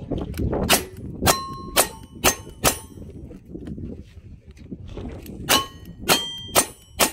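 A pair of single-action revolvers fired at steel plate targets. Five shots come about half a second apart, each followed by the ring of the hit steel plate. After a pause of about two seconds, four more shots follow from the second revolver.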